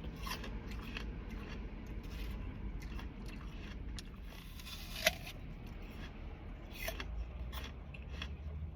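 Close-up chewing of crunchy food, with irregular crackly crunches and a sharper crunch about five seconds in.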